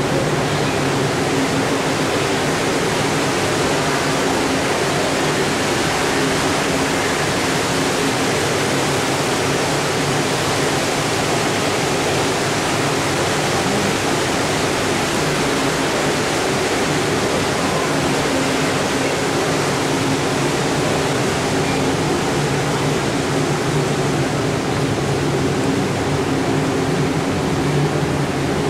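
Steady, even rushing of running water in an indoor swimming pool hall, with a faint low hum beneath it.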